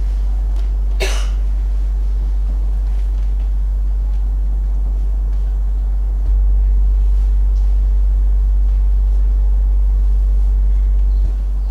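Sine wave oscillator drone: a deep steady tone that steps louder about six seconds in and drops back shortly before the end, with a faint higher steady tone added during the louder stretch. A short noise about a second in.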